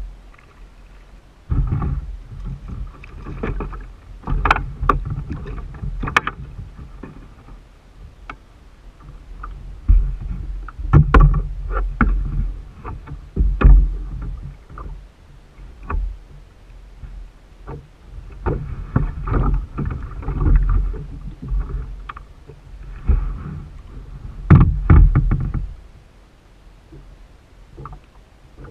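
Irregular spells of knocks, bumps and rubbing on a plastic kayak's hull, with sharp clicks among them, quieter between the spells.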